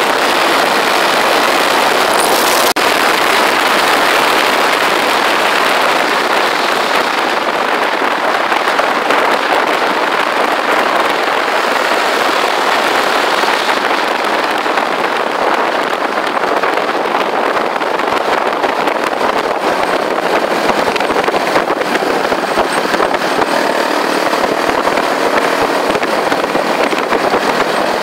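Motorcycle ridden at road speed on a wet road: a steady, loud rush of wind and tyre noise with no clear engine note standing out.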